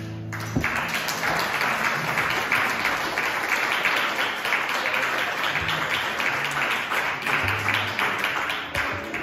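Audience applauding, a dense patter of many hands clapping in a hall. It starts about half a second in and thins out near the end, with a few short low notes underneath.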